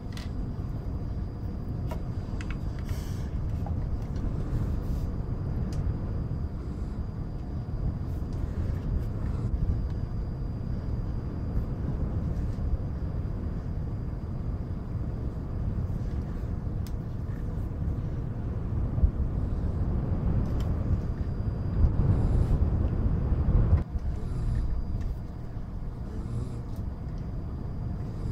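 Steady, low rumbling wind noise laid under the recording. It swells louder near the end, then drops suddenly. Faint scattered clicks of jigsaw puzzle pieces being handled sit above it.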